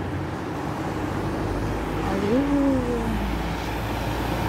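Street traffic noise, with a vehicle's low rumble building from about a second and a half in.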